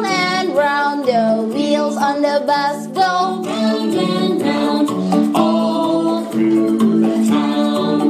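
A children's action song: a voice singing a melody over a plucked-string accompaniment, sung along to as an exercise song.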